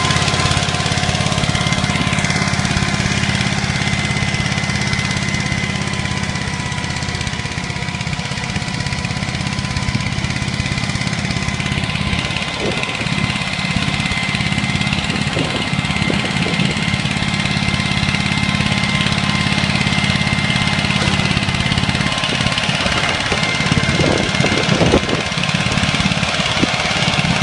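Goldoni compact tractor's engine running steadily under load as it pulls a rear-mounted rotary tiller through the soil, with a steady high whine over the engine and some uneven rattling about halfway through and near the end.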